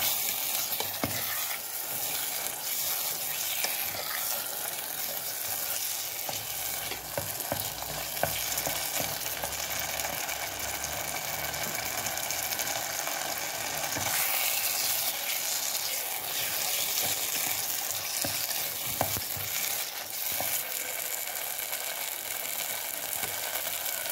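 Beef sizzling as it fries in butter and chili sauce in a pot, stirred with wooden chopsticks, with a few light clicks of the utensils against the pot.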